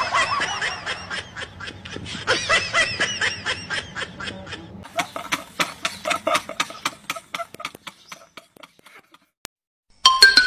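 A man laughing hard in fast, high-pitched cackles, several a second, that gradually fade out. Music starts near the end.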